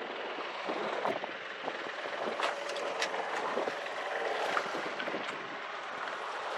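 Wind buffeting the microphone and water moving around a yacht's hull, with scattered small knocks and clicks from the deck and rigging.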